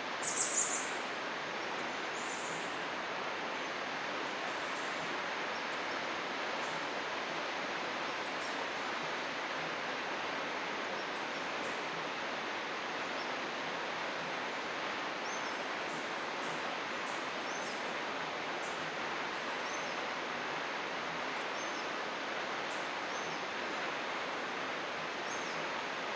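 Steady rushing of a flowing stream, with birds chirping high above it: a loud chirp right at the start and another about two seconds later, then short faint chirps scattered throughout.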